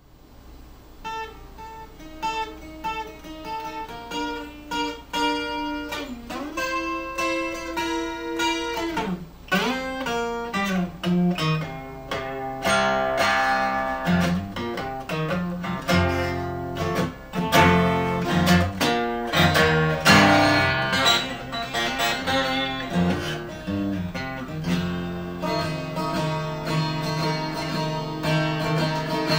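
2013 Martin twelve-string acoustic guitar played solo: single picked notes at first, building after about ten seconds into fuller, louder chords over bass notes.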